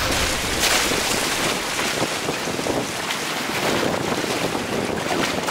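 Wind buffeting the microphone over the rush and splash of choppy water along the hull of a sailing kayak moving fast.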